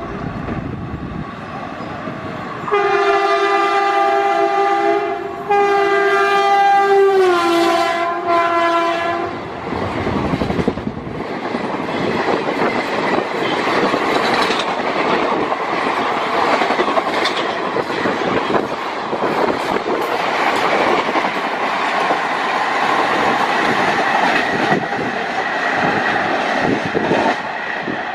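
Electric locomotive's horn sounding two long blasts, the second dropping in pitch as the engine passes, then the rush and clickety-clack of the express's coaches going by at speed.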